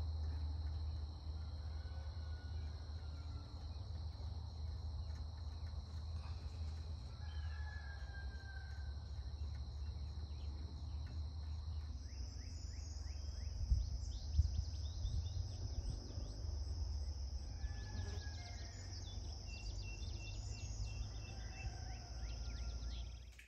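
Outdoor dawn ambience: insects trilling in one steady high-pitched drone, with scattered short bird chirps over a low steady rumble. The trill shifts slightly higher about halfway through.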